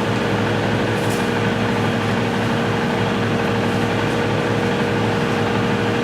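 A steady, unbroken machine hum: a low drone with several constant tones over a even noise, like a running motor or fan.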